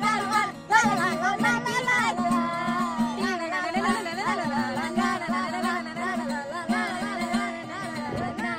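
A man singing a Hindi song in a wavering melodic line, accompanied by an acoustic guitar.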